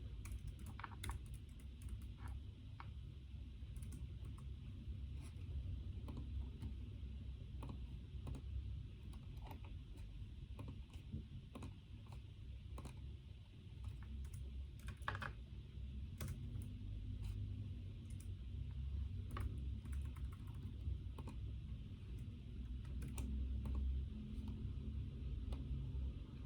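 Typing on a computer keyboard: irregular runs of light key clicks, over a steady low hum.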